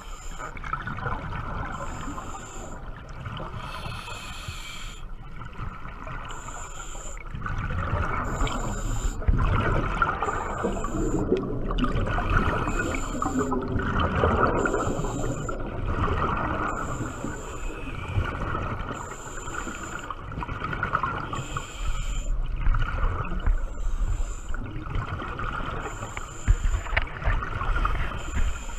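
Scuba diver breathing through a regulator underwater: hissing inhalations and bubbling, gurgling exhalations, with swelling rumbles of bubbles and a faint high tone that pulses every second or two.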